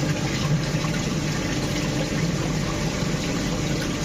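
Small-hole EDM drilling machine ("super drill") running steadily with its water flowing: an even rushing hiss over a low machine hum while a 0.5 mm hole is burned.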